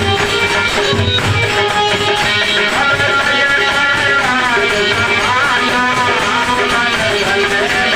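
Instrumental passage of a Hindi folk bhajan: a plucked-string melody with bending notes over a drum beat.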